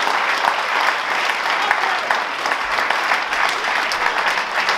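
Audience applauding steadily: dense clapping from a seated crowd.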